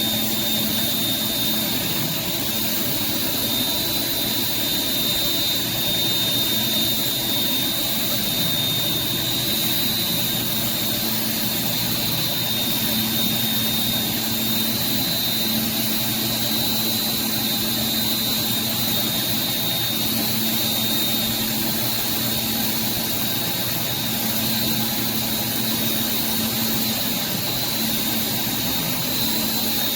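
Pressure washer running steadily, its water spraying through a surface cleaner onto concrete, with a thin high whine held throughout.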